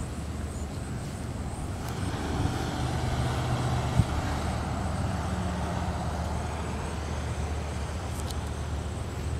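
Road traffic: a motor vehicle's engine running close by, with the noise of traffic swelling from about two seconds in. There is a single sharp click about four seconds in.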